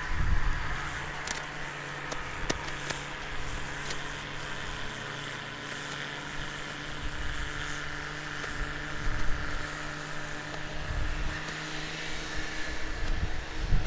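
Diesel engine of heavy farm machinery running steadily at constant speed, with an uneven low rumble underneath.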